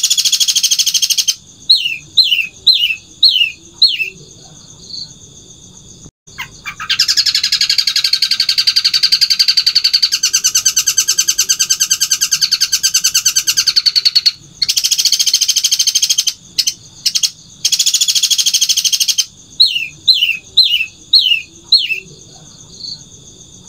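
Long-tailed shrike (cendet) singing loudly. Dense harsh chattering bursts alternate with runs of five or six short, quickly falling notes. In the middle comes a long, very fast rattling trill lasting about seven seconds.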